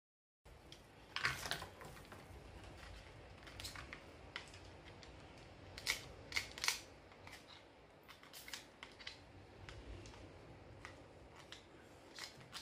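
A utensil scrapes solid coconut oil out of a plastic tub, and dollops drop into a frying pan. The sounds are faint scrapes and light clicks, scattered irregularly.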